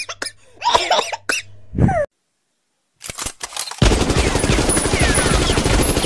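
Sound-effect gunfire: after a short voice-like sound effect and a second of silence, a few single shots crack out, then rapid automatic fire runs continuously from about four seconds in.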